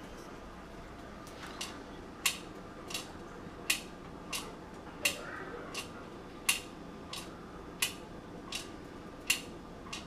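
Distillate dripping from a copper condenser tube into a plastic measuring cup: a sharp little tap for each drop, about one every 0.7 seconds, from about two seconds in.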